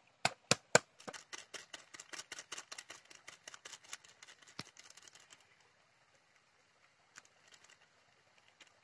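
A curved chopping knife striking a wooden board as garlic is minced: three sharp chops, then a run of quicker, lighter knife taps for about four seconds, fading to a few faint clicks near the end.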